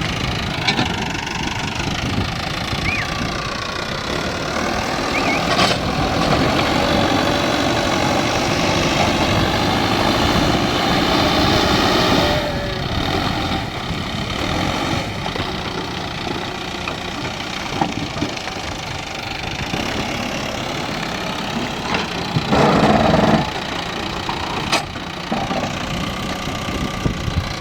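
Diesel engine of a JCB earthmoving machine running steadily under work. It grows louder through the middle, there are a few sharp knocks, and a brief louder burst comes near the end.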